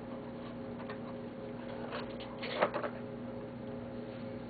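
Light clicks of small parts and tools being handled, with a short louder clatter about two and a half seconds in, over a steady hum.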